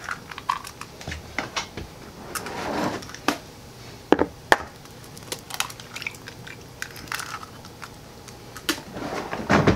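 Eggs being cracked and opened over a plastic mixing bowl: scattered sharp taps and small crunches of shell, with two louder taps about four seconds in.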